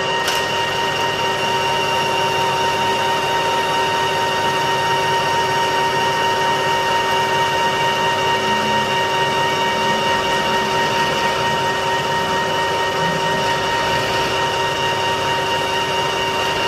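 Colchester Mastiff metal lathe running steadily with a high gear whine while its tool takes a radius cut across the face of a steel hammer head.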